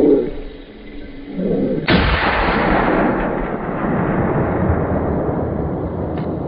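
A single gunshot from a hunting gun about two seconds in, rolling on and slowly fading for several seconds, after two short, loud, low calls.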